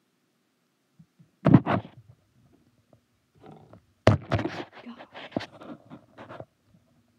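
Thumps and clattering knocks of metal crutches and the handheld phone being moved around: a quick double thump about a second and a half in, then a loud knock about four seconds in, followed by a run of smaller knocks lasting about two seconds.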